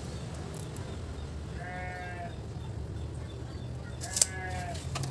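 An animal bleating twice, each call about half a second long and steady in pitch. A sharp click lands at the start of the second call, over a steady low background hum.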